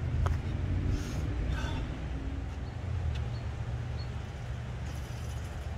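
Steady low rumble of outdoor background noise, with a few faint clicks over it.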